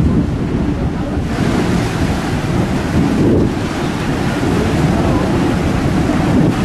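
Low, steady rumble of a ro-ro ferry's propellers churning up the harbour water as it moves off from the quay. A rushing wash of turbulent water joins in about a second in.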